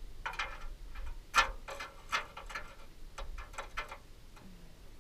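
Fishing reel clicking as line is cranked in on a hooked fish: an uneven run of short, sharp ticks, about three or four a second, thinning out near the end.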